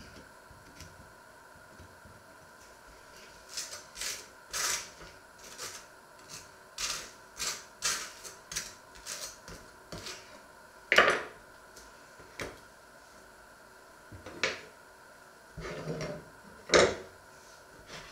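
Knife scraping butter onto slices of toast: a run of short rasping strokes, then a few sharp knocks on the wooden board and counter, the loudest near the end.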